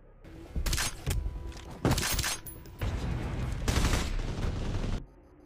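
Film gunfight: automatic assault-rifle fire in several bursts over about four seconds.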